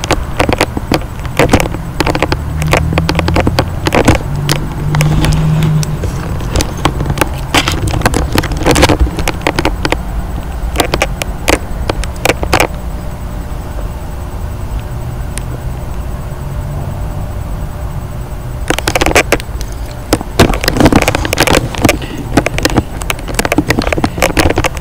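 Handling noise from a handheld camera's microphone being moved about: irregular rubbing and clicking, thickest near the start and again near the end, over a steady low rumble.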